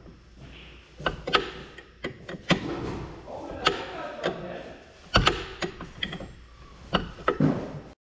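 Metal clanks and clicks from a combine's slatted conveyor chain and its parts being handled during a repair: sharp, irregular knocks every half second to a second or so.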